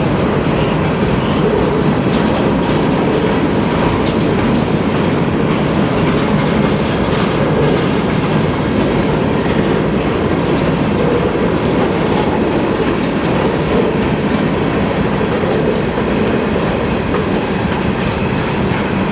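Freight train cars rolling past at speed: a steady rumble with the clickety-clack of wheels over rail joints.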